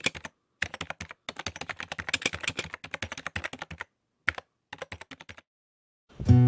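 Typing sound effect: rapid computer-keyboard key clicks in several runs broken by brief pauses. Guitar music comes in just before the end.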